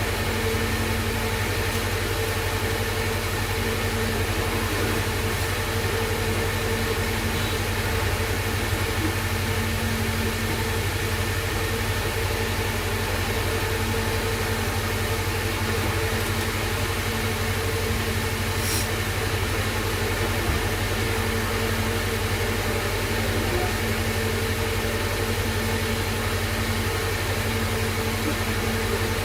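A steady, unchanging mechanical hum with a hiss over it.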